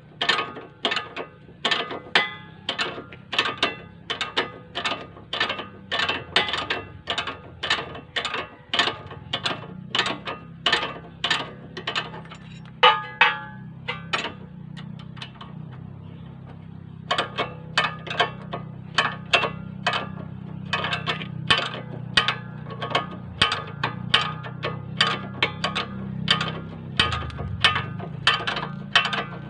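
Ratcheting wrench clicking in a steady run of about three clicks a second as a bolt is worked at the base of a car's front shock absorber. The clicking stops for a few seconds midway and then resumes, over a steady low hum.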